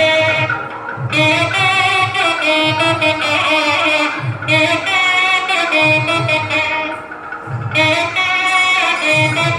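Devotional song: a woman singing a melody over instrumental accompaniment with a steady low beat.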